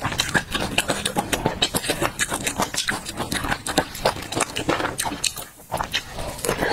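Close-miked chewing of crunchy peanut chili sauce, with many rapid wet crunches and mouth clicks and a brief lull about five and a half seconds in.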